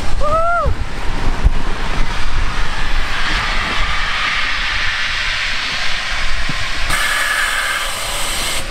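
Canister liferaft inflating from its gas cylinder: a loud, steady rush of gas hissing into the buoyancy tubes. The tone changes about seven seconds in, and the hiss cuts off suddenly near the end.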